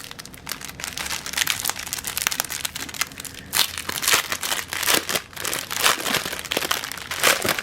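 Plastic packaging of a diamond painting kit crinkling and rustling as it is handled, in a quick irregular stream of crackles.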